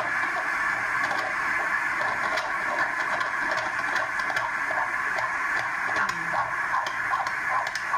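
Fetal heartbeat on a Doppler ultrasound, a steady hiss pulsing with each beat, heard through a television speaker.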